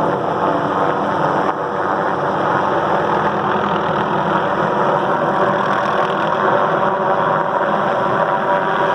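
Helicopter running steadily, its engine and rotor noise a loud, unbroken drone.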